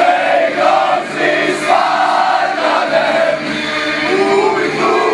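A group of men singing a football chant together in a chorus.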